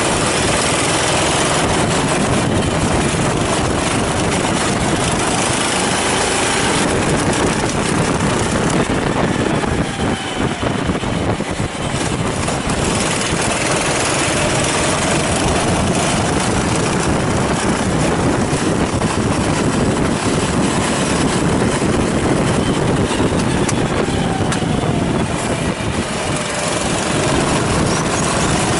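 Kart engine running hard on track, its pitch rising and falling over and over as it accelerates and lifts through corners, with a brief drop in level about ten seconds in.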